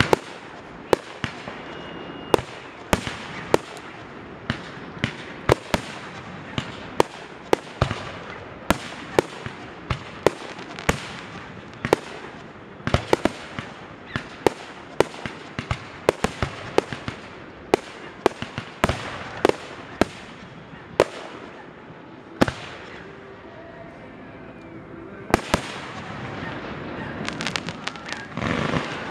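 Aerial fireworks shells bursting overhead: a long run of sharp bangs, about one to two a second. The bangs thin out briefly about three-quarters of the way through, then come in a dense volley near the end.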